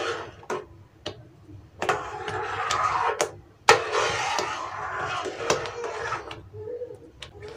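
Metal spoon stirring and scraping a thickening cornflour-and-sugar halwa mixture around a pan, a wet swishing scrape with several sharp clicks of the spoon against the pan.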